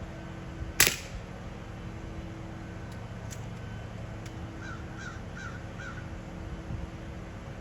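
A single sharp shot from a Beeman Commodore .25 regulated PCP underlever air rifle fitted with a can, about a second in. Later a bird calls four times in quick succession, over the steady hum of HVAC units.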